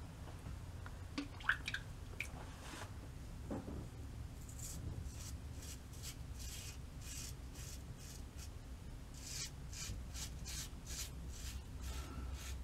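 A safety razor with an AC blade scraping through lathered stubble against the grain, in a run of short, faint strokes that come quicker toward the end.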